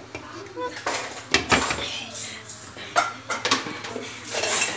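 Cookware clattering on a gas stove: a lid being set on a pan of noodles, with a handful of knocks and clinks of metal and glass.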